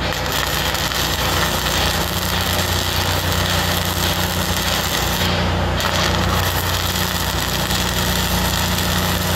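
Self-shielded flux-cored wire arc welding on structural steel: the arc crackles steadily as a 1/16-inch wire at about 25.5 volts lays a weld pass on a column splice. It starts at once, with a steady low engine drone underneath.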